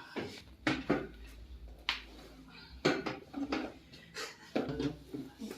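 A string of about a dozen irregular sharp clicks and knocks during a chiropractic adjustment.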